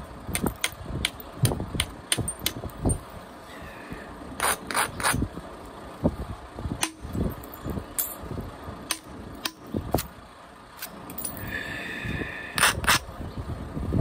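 Copper-tipped billet striking and grinding the edge of a sawn stone slab in flintknapping: a quick run of light clicks, then a few sharper knocks around the middle and again near the end, as flakes are driven off.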